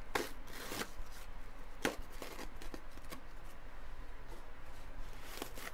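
Small objects being handled and set down on a desk: a few light knocks and clicks with some rustling in between.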